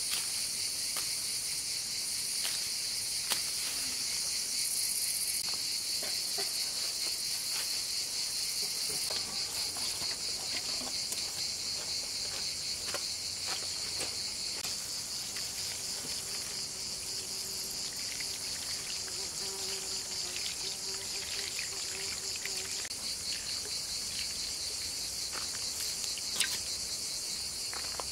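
Crickets chirring in a dense, steady chorus, with a few scattered sharp clicks.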